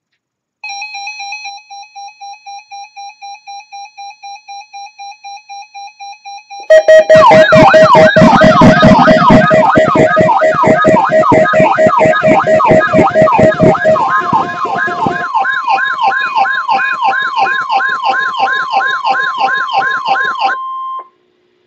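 NOAA Weather Radio alert tones and receiver alarm. First a pulsing electronic beep, about three or four beeps a second. Then, about a third of the way in, a much louder siren-like alarm sweeping up and down about twice a second. A steady 1050 Hz weather-radio warning tone joins about two-thirds of the way in, and everything cuts off abruptly near the end.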